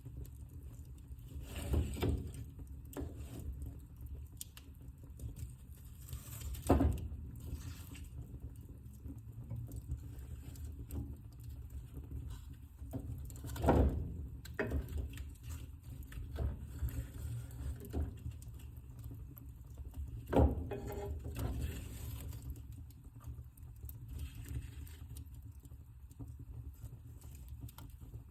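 Wood fire burning in a fireplace: a low steady rumble of flames with irregular small crackles and four louder pops spread through.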